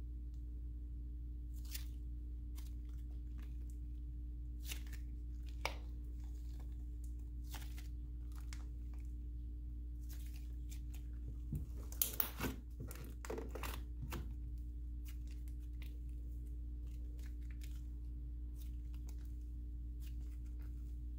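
Butter slime being stretched and folded by hand, giving scattered sticky crackles and soft pops, with a brief cluster of louder crackles a little past the middle, over a steady low hum.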